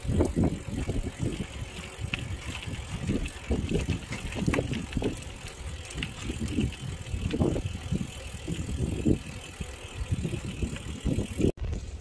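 Wind buffeting the microphone of a camera carried on a moving bicycle: an irregular, gusty low rumble with a few light clicks over it. It drops out for an instant near the end.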